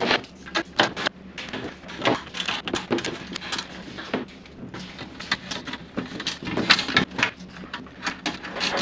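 A sheet-metal drawer being handled and fitted onto its ball-bearing drawer slides: irregular metallic clicks, knocks and clatter.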